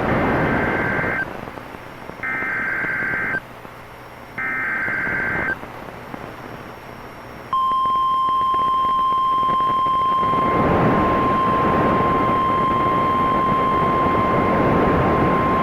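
NOAA Weather Radio Emergency Alert System tones: three short bursts of buzzy SAME digital header data, each about a second long, encoding the tornado warning. About seven and a half seconds in, a steady 1050 Hz warning alarm tone starts over radio hiss that grows louder partway through.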